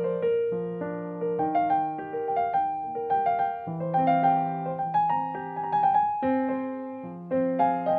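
Background piano music: a gentle melody of struck notes over a lower accompaniment, each note fading after it is played.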